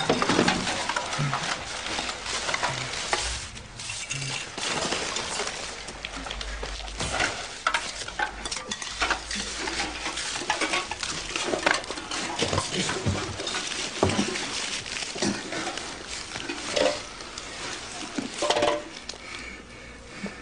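Irregular clattering, scraping and clinking of dishes, pans and clutter being knocked about on a littered floor. The sounds come as scattered sharp knocks over a rustling background.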